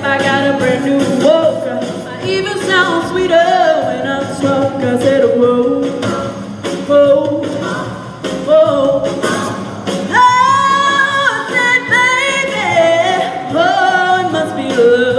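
Music: a group of voices singing together in a stage performance, loud and continuous.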